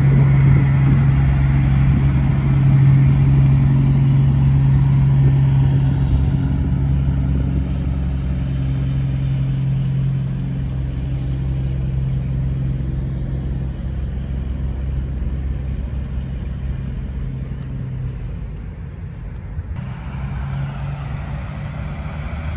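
Semi truck's diesel engine running as the tractor-trailer drives past and pulls away, a steady low drone that is loudest in the first few seconds and slowly fades, dying out about eighteen seconds in.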